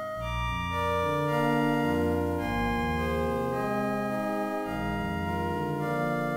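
Electronic keyboards tuned in an untempered, microtonal tuning, playing held chords. The notes sustain without fading, and new pitches enter and old ones drop out every second or so.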